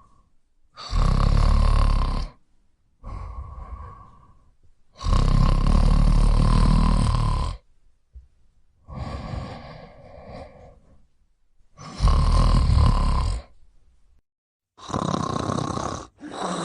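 A sleeper snoring: three loud snores, each about one and a half to two and a half seconds long, with quieter breaths between them.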